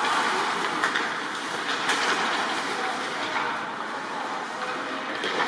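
Ice hockey play: skates scraping steadily on the ice, with a few sharp clacks of sticks and puck, about a second in, near two seconds and near the end.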